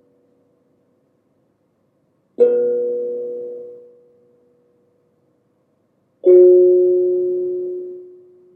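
Two single struck notes on a meditation sound instrument, each ringing and fading out over about two seconds. The second, lower note comes about four seconds after the first.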